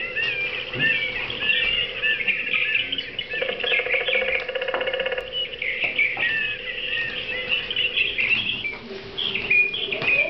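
Several songbirds chirping and whistling in a mix of overlapping short calls, with a fast, evenly pulsed rattling trill about three seconds in that lasts some two seconds. A faint steady hum sits underneath.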